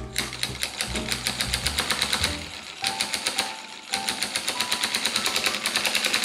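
Lego single-cylinder solenoid engine running fast on 24 volts: a rapid, even clatter of the solenoid plunger snapping in and out, switched by a microswitch valve, with the Lego linkage rattling. The clatter weakens for about a second a little before the middle, then comes back strongly; the engine is not running very stably.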